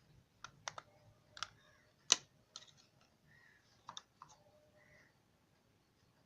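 Irregular sharp clicks and taps, as of hard plastic being handled, about ten in four seconds, the loudest about two seconds in.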